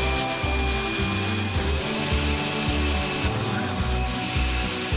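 Table saw running with its blade cutting a wooden board, a steady hiss, under background music with a stepping bass line.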